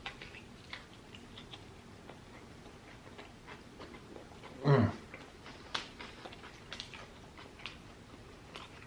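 Close-up chewing: soft wet clicks and smacks of a person eating, with one short, low voiced sound falling in pitch about halfway through.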